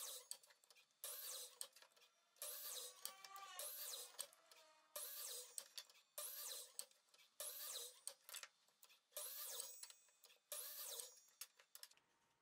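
Sliding compound miter saw making a quick run of short crosscuts through small wooden blocks. There are about eight bursts, each starting sharply and trailing off, roughly one every second or so.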